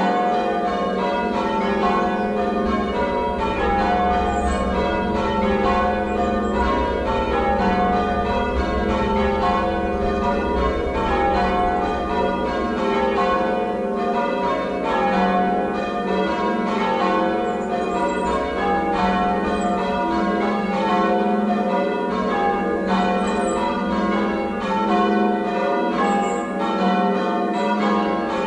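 Church bells of a ring of six, tenor 10–2–12 cwt in F, being change rung, struck one after another in a continuous stream of rows.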